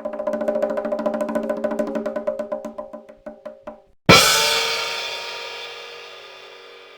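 A fast drum roll that slows and fades over about four seconds, then, after a short gap, a single loud crash hit that rings out and dies away over the remaining few seconds.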